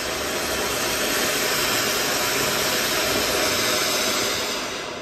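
Ground fountain firework spraying a tall column of sparks with a loud, steady hiss that starts dying away near the end.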